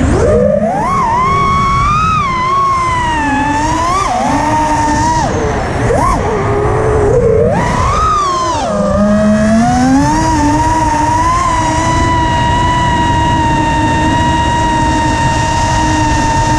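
Five-inch FPV freestyle quadcopter's T-Motor 1950kv brushless motors and props whining, recorded on board. The pitch swings up and down with repeated throttle changes for about the first nine seconds, then holds a steady, slowly falling pitch, over a constant rush of wind on the microphone.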